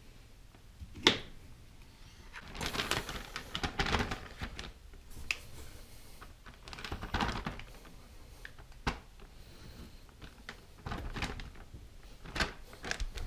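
A knife chopping through a hot dog and knocking on the countertop once, about a second in, then a plastic zip-top bag crinkling and rustling in bursts as hot dog chunks are gathered and dropped into it, with scattered light knocks on the counter.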